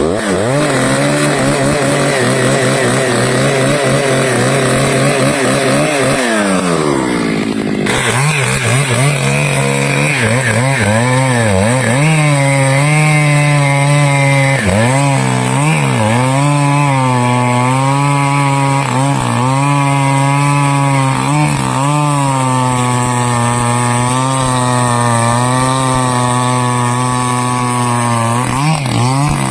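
Stihl two-stroke chainsaw running at high revs while cutting teak, its engine pitch dipping and recovering again and again as the chain bites into the wood. About seven seconds in the pitch falls steeply, then the sound cuts off abruptly and resumes.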